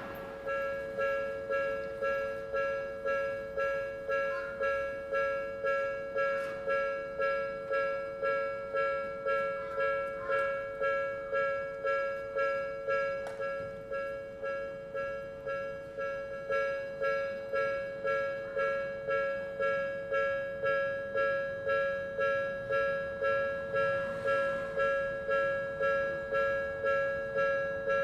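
Japanese railway level-crossing alarm, the electronic two-tone Odakyu-type bell, ringing in a steady repeating rhythm of a little under two strikes a second. It starts about half a second in.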